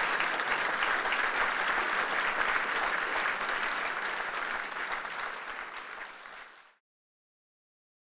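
Audience applauding steadily, easing off slightly before cutting off suddenly about seven seconds in.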